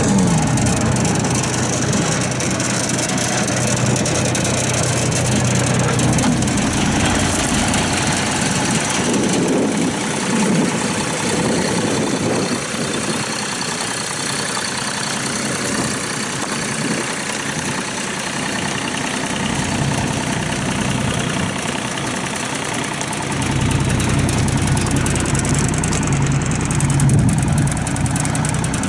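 A John Deere three-cylinder diesel engine in a mini excavator running with a steady clatter. Its low drone falls back soon after the start and returns strongly near the end.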